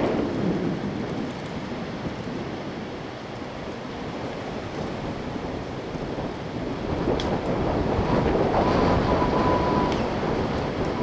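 Strong wind gusting through trees, buffeting the microphone, with a louder gust building about seven seconds in.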